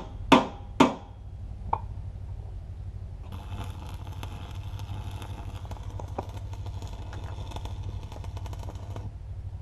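Three loud knocks on metal in quick succession and a lighter one, then an electric arc welder crackling steadily for about six seconds, stopping near the end. A steady low hum runs underneath.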